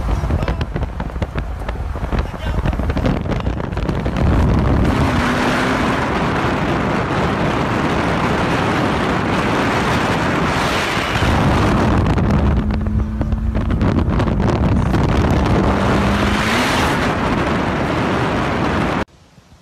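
Ferrari 458's V8 engine running under heavy wind rush on the microphone of a car pacing it at speed. The engine note climbs in pitch about five seconds in and again near the end. The sound cuts off abruptly about a second before the end.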